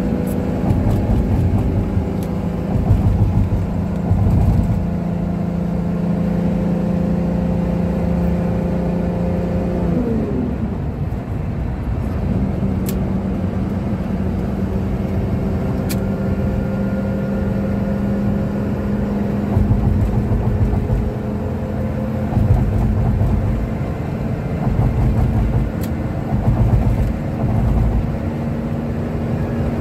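Engine drone and road rumble inside a Toyota Coaster minibus cruising on a highway. The engine's steady hum dips sharply in pitch about ten seconds in, then climbs slowly again, while a low rumble from the road swells now and then.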